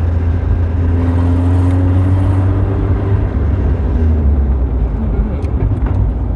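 Nissan 200SX S12's four-cylinder engine pulling on a test drive, with a freshly reinstalled distributor, over a steady low road rumble. The engine note climbs slowly over the first few seconds, then drops about four seconds in.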